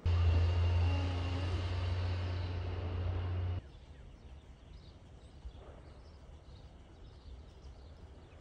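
Outdoor ambience: a steady low rumble with hiss cuts off suddenly about three and a half seconds in. A much quieter outdoor background with faint chirps follows.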